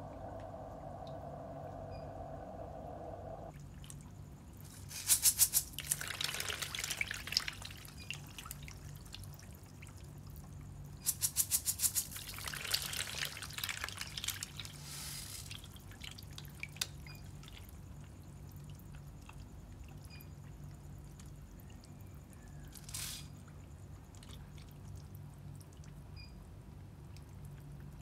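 Catfish splashing and thrashing at the water surface of a feeding bucket in two bouts, about five and about eleven seconds in. Each bout starts with a quick run of sharp splashes and dies away over a few seconds. A low steady hum sits underneath.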